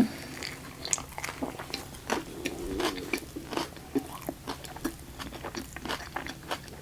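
Close-up chewing of a mouthful of chicken Caesar wrap with lettuce and breaded chicken: crunchy bites and many small, wet mouth clicks.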